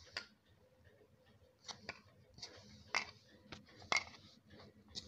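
A hand rubbing and pressing crumbly maida dough in a bowl, a soft scraping with about half a dozen sharp clicks and knocks against the bowl. This is the early crumbly stage of kneading a stiff dough, with water added a little at a time.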